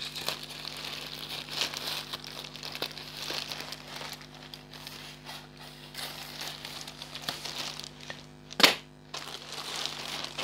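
Plastic courier mailer bag crinkling and rustling as it is handled and cut open with scissors, with one short loud snap about eight and a half seconds in.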